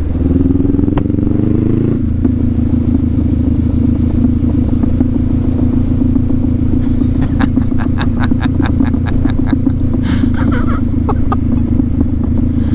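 Honda CB500X's parallel-twin engine running through an aftermarket slip-on exhaust while riding: the pitch rises for about two seconds, drops at a gear change, then holds steady at a cruise. A quick run of sharp clicks comes about halfway through.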